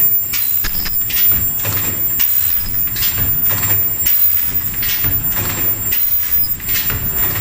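Fully automatic N95 mask production machine running: a steady hum and a thin high whine under repeated hissing, clattering strokes, about two to three a second.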